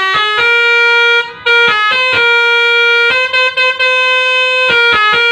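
Pianika (melodica) playing a telolet bus-horn tune of the Basuri kind: long held notes alternate with quick runs of short notes, with a brief break about a second and a half in.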